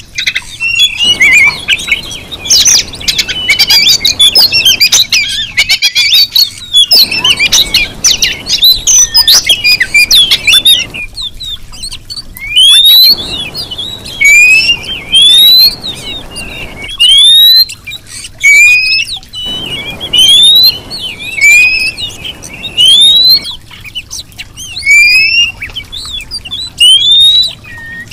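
Female Oriental magpie-robin (kacer) calling: a dense run of scratchy chattering notes, then a string of short rising whistles repeated about every second or so. This is the female's call used as a lure to provoke a male into singing.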